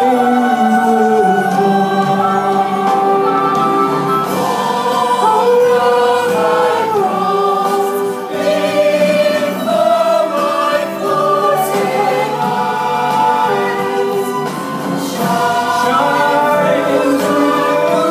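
Choir singing in harmony, several voice parts holding notes and moving together from chord to chord.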